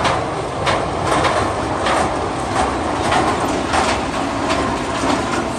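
Amusement-park ride train running along its elevated track: a steady rumbling rush with a regular clack about every two-thirds of a second.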